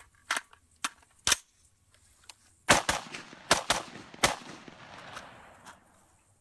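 Spike's Tactical "Crusader" AR-15 rifle firing. A few spaced sharp shots come in the first second and a half, then a quick string of louder shots about halfway in, each followed by an echoing tail.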